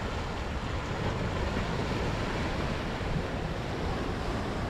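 Steady rush of sea surf on a rocky shore, mixed with wind on the microphone, without any distinct events.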